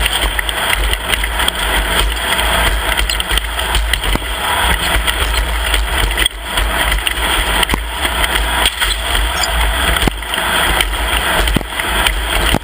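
An off-road race vehicle's engine running, buried in a loud, steady rush of noise with a heavy low rumble.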